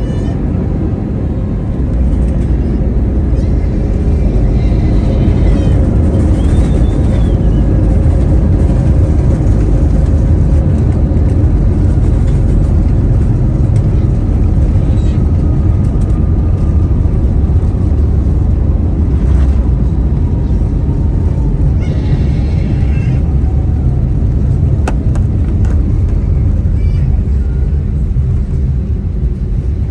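Cabin noise of an Airbus A320neo heard from inside the cabin: a loud, steady low rumble, with a faint whine that falls slowly in pitch through the middle.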